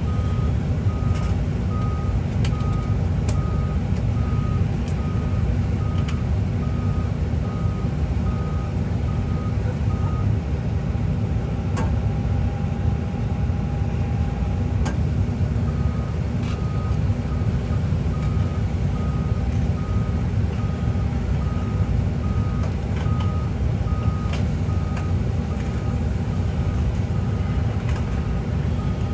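Excavator diesel engine running steadily under load while the machine tracks, its travel alarm beeping about twice a second; the beeping pauses for a few seconds about ten seconds in, then resumes. Occasional clicks and knocks over the engine.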